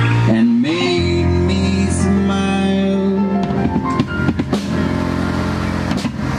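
Live rock trio of keyboards, electric guitar and drum kit playing without vocals: held chords over bass, with a quick run of drum hits about four seconds in, as the song comes to its close.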